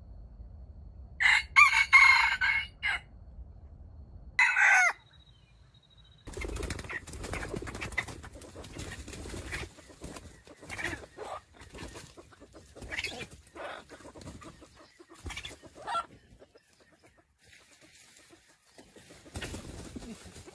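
Red junglefowl rooster crowing loudly about a second in, then giving a shorter call that falls in pitch a few seconds later. After that comes a stretch of crackly rustling with a few brief, softer calls.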